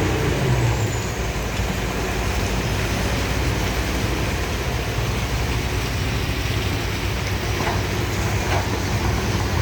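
Heavy truck diesel engine running steadily at low speed, with a continuous hiss of noise over it.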